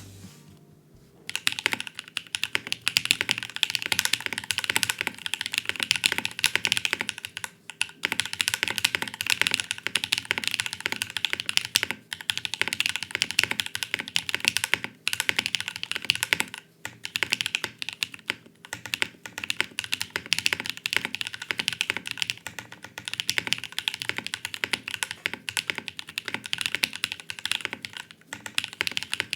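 Fast typing on a custom mechanical keyboard: a Portal case with a carbon fiber plate, Raeds switches lubed with 205g0 and filmed, Durock v2 stabilizers and GMK keycaps. A dense run of key clicks starts about a second in, with a few brief pauses.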